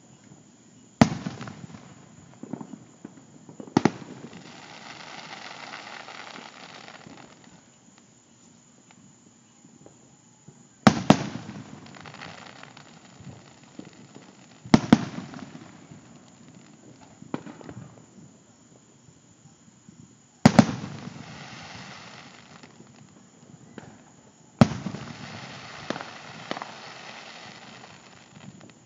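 Aerial fireworks shells bursting: about six sharp booms spread several seconds apart, several of them followed by a few seconds of crackling.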